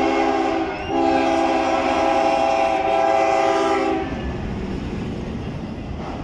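BNSF diesel locomotive sounding its horn, several tones at once, with a short break about a second in and then a long blast that cuts off about four seconds in. The rumble of the locomotive and its autorack freight cars rolling past on the rails follows.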